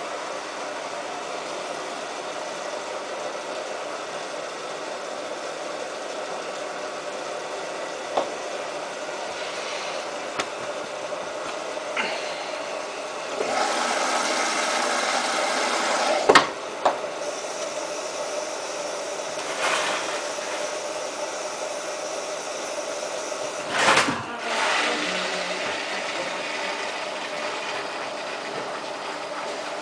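Samsung WF8804RPA front-loading washing machine running at the start of its main wash: a steady hum with a louder hissing stretch midway and a few sharp knocks, two of them loud.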